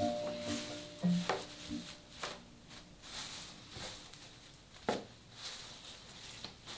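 Dry mugwort leaves and stems rustling and crackling as handfuls are lifted from a heap and dropped back onto it, with a sharper crackle about five seconds in. Soft marimba-like music notes sound in the first second or two.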